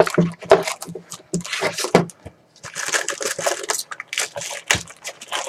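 Paper and plastic packaging being handled: quick rustles and clicks, then, from about halfway in, a steady crinkling of plastic wrap.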